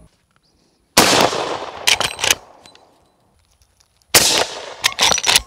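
Two suppressed .45-70 rifle shots from a Henry X lever-action fired through a Silencer Central Banish 46 suppressor, about three seconds apart. Each shot is followed by a few sharp clicks as the lever is worked.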